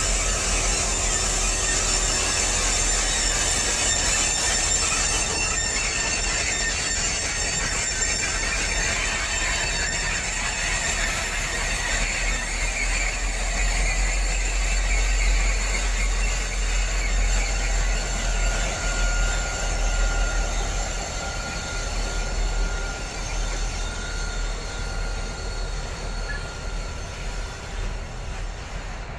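Pacific National grain train passing, its diesel locomotives running as they go by, then grain hopper wagons rolling past. A thin steady squeal from the wheels sets in about two-thirds of the way through as the sound eases slightly.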